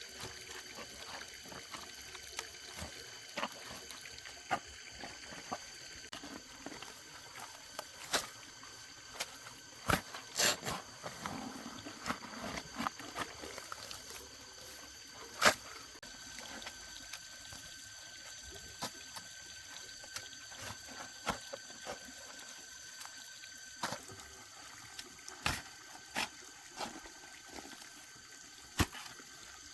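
Water trickling steadily, with scattered sharp knocks and clicks on top and a few faint steady high-pitched tones.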